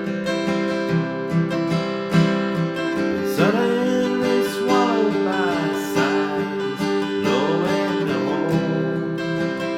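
Background song: strummed acoustic guitar with a singing voice that comes in about three seconds in and fades out near the end.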